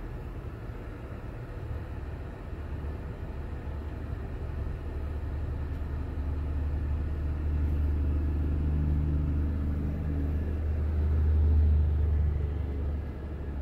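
Low engine and road rumble inside a vehicle's cabin as it pulls away and drives off. It grows louder as the vehicle picks up speed, is loudest about twelve seconds in, then eases off near the end.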